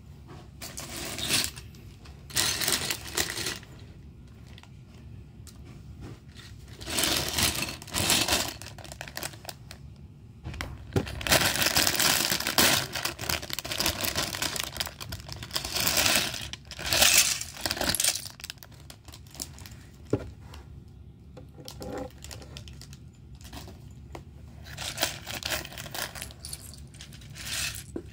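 Loose plastic LEGO pieces clinking and rattling while a plastic parts bag crinkles, as the pieces are handled. The sound comes in repeated bursts a second or two long, with quieter pauses between them.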